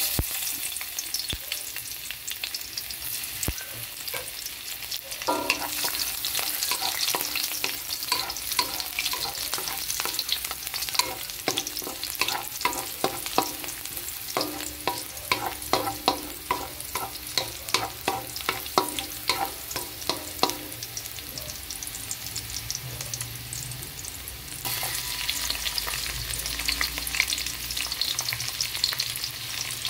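Sliced garlic sizzling and crackling in hot oil in a metal wok, stirred with a wooden spatula that scrapes the pan in repeated strokes through the middle. The sizzle grows louder and brighter near the end.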